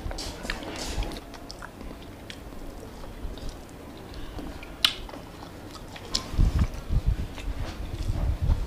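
Close-miked chewing of a mouthful of rice and chicken, with small wet clicks and one sharper click about halfway through. Low dull thumps come in the second half.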